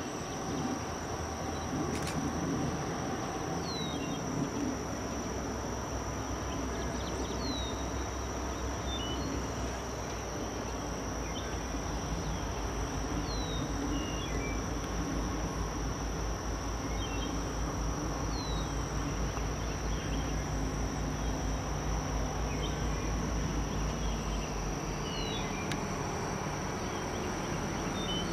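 Diesel locomotive engines running with a low, steady rumble that swells about six seconds in. Over it are a steady high insect drone and a bird giving a short descending chirp every few seconds.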